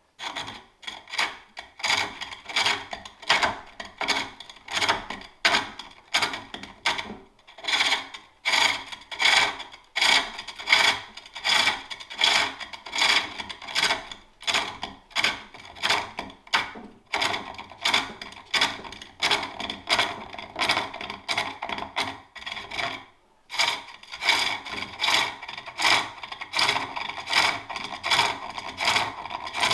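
Turning tool cutting a wooden bowl on a spring pole lathe: a rhythmic rasping scrape on each downstroke of the treadle, about one and a half strokes a second, with a short pause a little past two-thirds of the way through.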